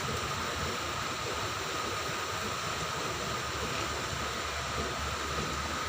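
Steady ambient noise: an even hiss with a thin, constant high hum and a low rumble underneath, with no distinct events.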